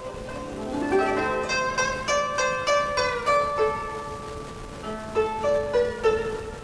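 Instrumental background music carried by plucked strings, with a quick rising run of notes about half a second in, then ringing, decaying notes.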